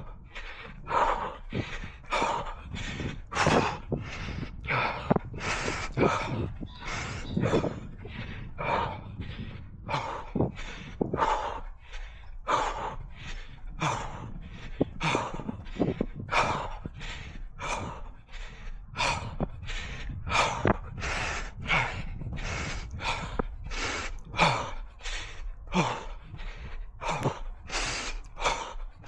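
A runner's heavy, rhythmic breathing close to the microphone, about one to two breaths a second, from the effort of a hard 5 km run.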